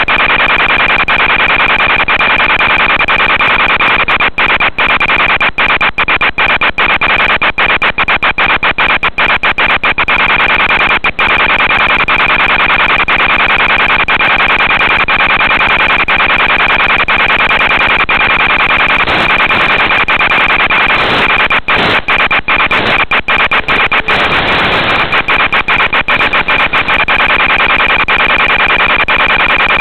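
Audio channel of an analog FPV video link: a loud, steady hiss with a constant high tone, which on an EzOSD setup carries the telemetry that feeds the antenna tracker. The hiss is cut by many brief dropouts, clustered in the first third and again about two-thirds through, as the signal momentarily breaks up.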